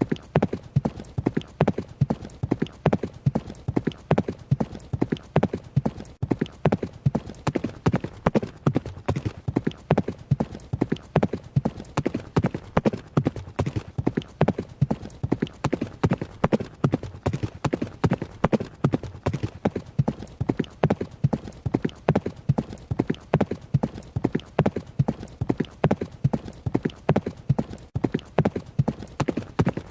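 Horse hooves striking the ground at a running pace: a steady, unbroken clip-clop of sharp hoofbeats in an even repeating rhythm.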